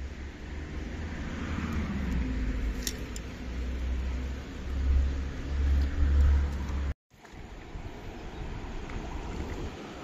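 Wind buffeting the phone's microphone in a low rumble over the steady rush of creek water, the rumble surging louder a few times. About seven seconds in the sound cuts out for a moment, then the flowing water carries on with little rumble.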